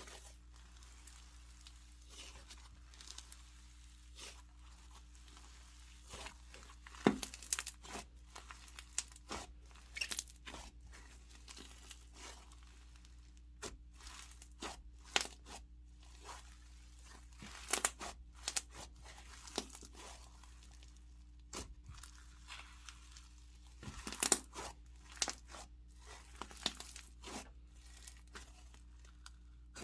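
Slime being worked by hand, making scattered soft crackles, crinkles and small pops.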